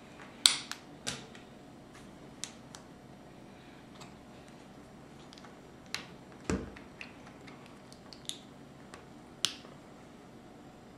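Small plastic Lego pieces clicking as fingers handle them and press them together: about ten sharp, separate clicks spread irregularly, the loudest about half a second in. A duller knock comes about six and a half seconds in.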